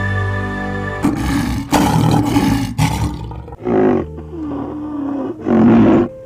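A large wild animal roaring and growling, a string of loud, rough calls each a second or less long, the loudest near the end, over a steady held musical tone in the first second.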